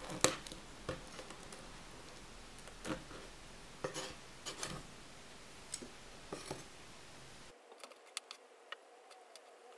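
Kitchen knife blade knocking and scraping on a wooden cutting board while cutting up small fish: a series of sharp, irregular knocks, lighter ticks in the last two seconds.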